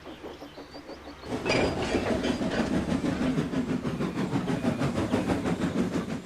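Steam locomotive running along the rails with quick, regular chuffs and clatter, starting loudly about a second in.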